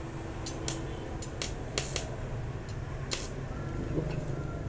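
Light metallic clicks and scrapes as a welding rod is handled in a stick welder's electrode holder just before the arc is struck, over a steady low hum.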